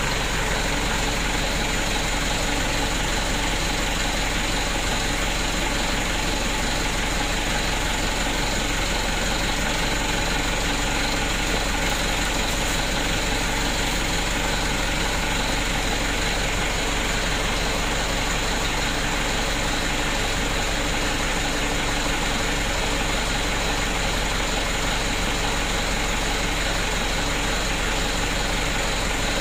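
A steady mechanical drone from a running machine, unchanging in level and pitch throughout.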